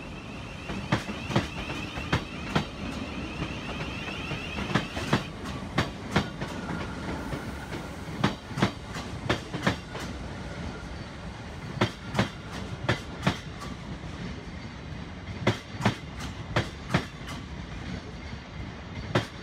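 Thameslink Class 700 electric multiple unit passing slowly along the platform: a steady rumble with sharp, irregular clickety-clack as its wheels cross rail joints, and a high whine that stops about five seconds in.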